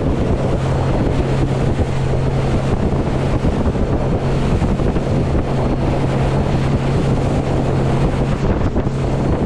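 RIB's outboard engine running steadily at speed, a constant low drone, with wind buffeting the microphone and water rushing past the hull.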